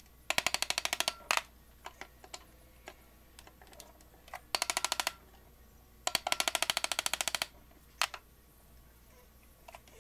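Hammer tapping rapidly on a wooden block held against a Delta Unisaw arbor shaft, driving the shaft through the bearing in its arbor bracket, which is a tight fit. Quick runs of light taps, about ten a second, come in three bursts with a few single taps between.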